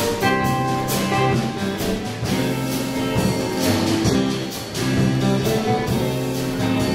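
Live band playing: electric guitars, electric bass and drum kit, with sustained guitar notes over a steady drum beat.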